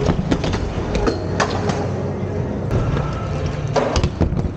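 Inline skate wheels rolling across the skatepark ramp with a steady rumble, broken by sharp clacks of skates striking hard surfaces. The densest cluster of clacks comes about four seconds in, as the skates hit the ledge.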